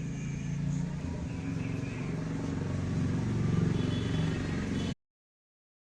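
Low, steady motor-vehicle rumble, swelling a little, then cutting off abruptly about five seconds in.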